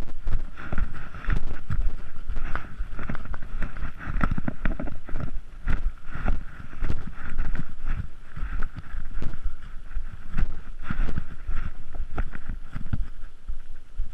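A hiker's footsteps and brush scraping against a body-worn action camera, with wind buffeting the microphone in irregular low thumps.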